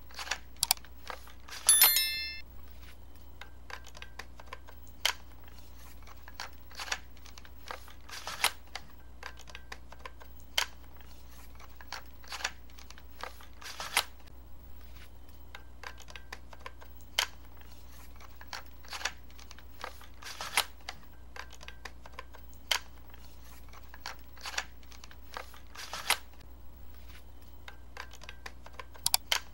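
Sharp, irregular plastic clicks and snaps of a small transformable robot toy's joints and panels being turned and locked by hand. About two seconds in comes a short bright ringing ding, the loudest sound. A low steady hum runs underneath.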